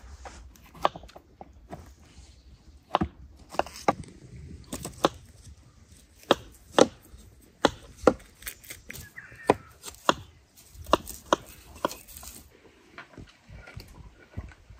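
Knife chopping fruit on a cutting board: irregular sharp knocks, about one to two a second, pausing briefly near the end.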